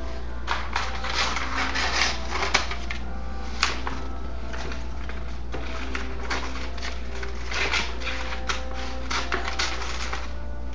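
Wrapping paper being handled, crinkling and rustling in irregular bursts with a few sharp clicks, over a steady low hum.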